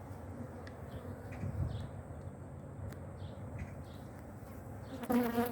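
Honeybees buzzing around an open hive, a steady low hum; near the end a bee flies close past the microphone with a loud buzz that swells and fades.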